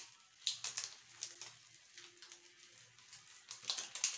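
A foil Maggi tastemaker sachet being shaken and tapped out over a pan, making soft irregular crinkles and ticks as the seasoning powder falls in.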